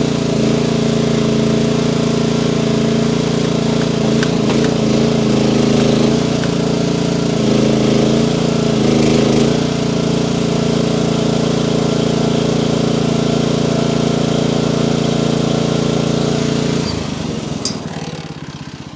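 Two-stroke chainsaw running at high revs while bucking logs. About two seconds before the end the revs drop off and the sound falls away.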